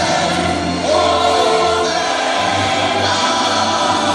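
Fireworks-show soundtrack music with a choir singing held notes, played over the show's loudspeakers.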